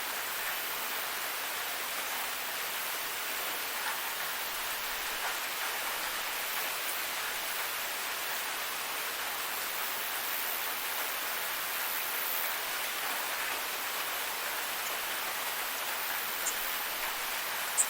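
Waterfall: a steady rush of falling water, an even hiss with little deep rumble. Two short high ticks stand out near the end.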